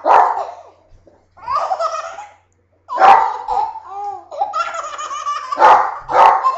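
Baby laughing hard at a sneeze, in several bouts with short gaps, while a dog barks.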